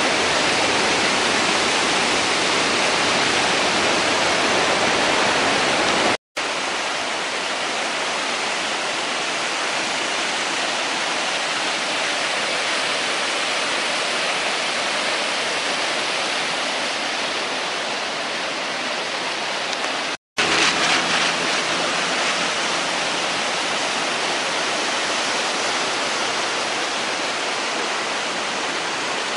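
A river swollen by heavy rain, running fast: a loud, steady rush of water. The sound drops out for an instant twice, about six and twenty seconds in.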